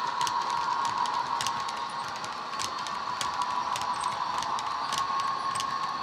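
Model Class 60 diesel running under a Hornby HM7000 sound decoder: a steady, tinny engine drone from the loco's small speaker. Over it, the model wagons' wheels click irregularly over the rail joints.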